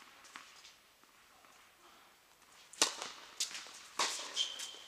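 Tennis ball struck by rackets: a sharp pop nearly three seconds in, followed by two more impacts in quick succession, then a brief high squeak, typical of a tennis shoe on a hard court, near the end.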